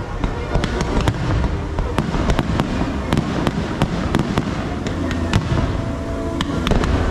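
Fireworks going off in quick succession: many sharp cracks and bangs, several a second, over a continuous low rumble.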